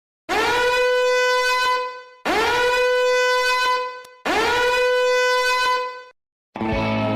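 Three long blasts on a blown horn, each about two seconds, each scooping up in pitch at the start and then held on one note, with short gaps between them. Near the end, different music cuts in.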